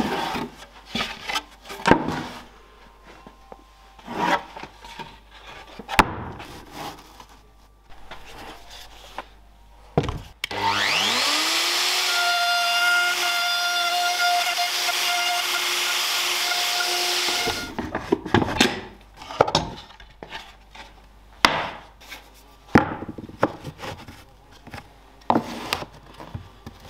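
Knocks and scrapes of wooden boards being handled. About ten seconds in, an electric router spins up with a rising whine, runs steadily for about seven seconds routing a test housing through a plywood template with a guide bush, then stops abruptly. It is followed by more sharp wooden knocks and taps as oak offcuts are fitted into the housing.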